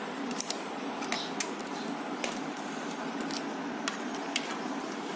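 A handful of short, sharp light clicks and taps from handling the TV chassis and multimeter probes, scattered irregularly over a steady background hiss.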